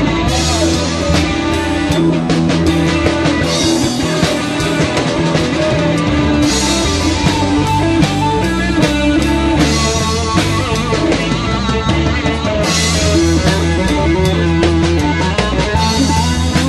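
Live rock band playing an instrumental passage: electric guitar, bass and drum kit, with cymbals swelling every few seconds.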